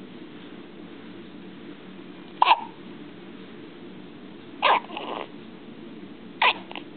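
One-day-old newborn baby hiccuping: three short, sharp hiccups about two seconds apart.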